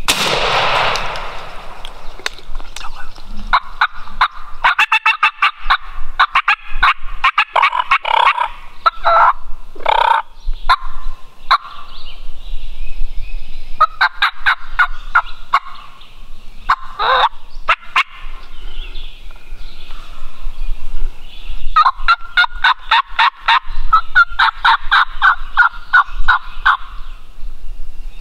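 Wild turkeys calling in the woods: long runs of rapid, rattling notes in three spells, with a sharp call sliding downward between them. A sudden loud noise sounds right at the start.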